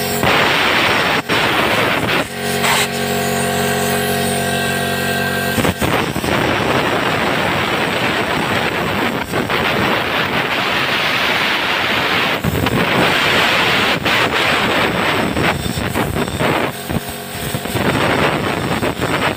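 Compressed air from an air compressor's blow nozzle hissing into a small engine's oil drain outlet to blow out the old engine oil, with the compressor's motor running steadily behind it. The motor's steady tone drops out about six seconds in, and the air hiss carries on with a few brief breaks.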